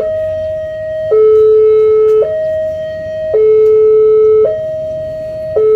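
Railway level-crossing warning alarm sounding a two-tone signal, alternating between a higher and a lower note, each held about a second, with the lower note slightly louder. It sounds while the barrier is down, warning that a train is approaching.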